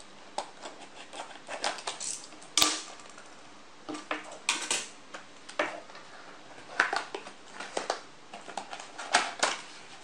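Cardboard toy box being cut open along its top flap with a small blade and then handled: irregular crackles, scrapes and rustles of card and plastic packaging, with a sharper crack about two and a half seconds in.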